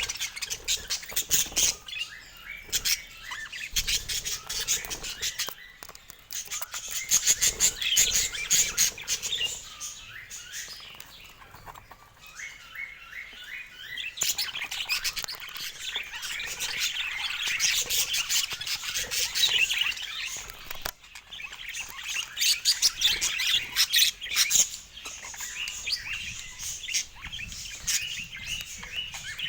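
Budgerigars chattering and warbling: a dense, continuous stream of rapid high chirps and short squawks, easing off briefly a few times.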